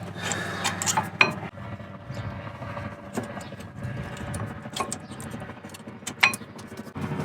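Scattered light metallic clicks and taps from metal brake parts being handled while copper grease is worked onto their sliding points, over a steady low rumble.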